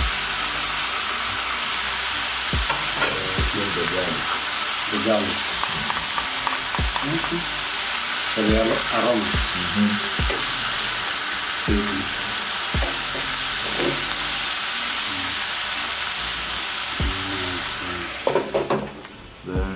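Raw pork pieces with garlic and green vegetables sizzling loudly in a frying pan on a gas burner, with a spoon stirring and scraping now and then. The meat is just starting to fry. The sizzle dulls suddenly near the end when a glass lid goes onto the pan.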